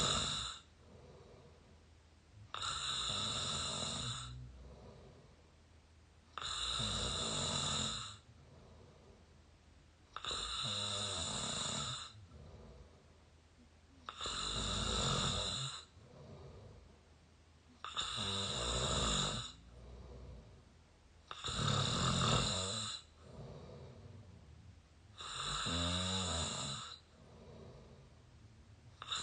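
A person snoring through an open mouth, close to the microphone. A loud rasping snore comes about every four seconds, each lasting about a second and a half, with a softer breath sound between snores.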